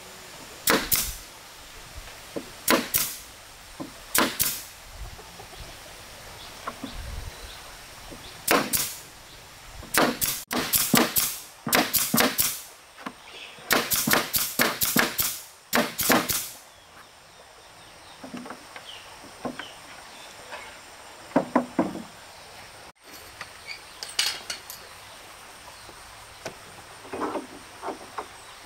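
A tool striking wood in sharp blows, chopping or knocking. At first the blows come singly every couple of seconds, then in quick runs of several, then as lighter knocks.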